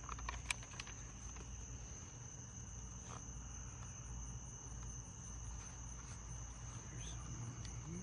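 Steady high-pitched insect chirring over a low background hum, with a few light clicks in the first second.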